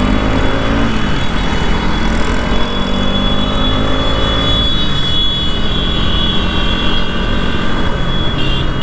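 Bajaj Pulsar NS200 motorcycle's single-cylinder engine running while the bike is ridden through traffic, its pitch shifting in the first second and then holding steady.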